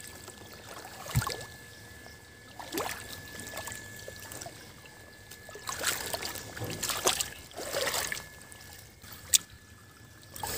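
Water in a goldfish tank trickling and splashing in short, irregular spells.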